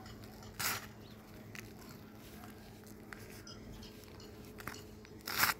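Hands squeezing and crumbling soft, powdery red dirt, with two louder crunchy rustles, one about half a second in and one near the end, and light crackles between them.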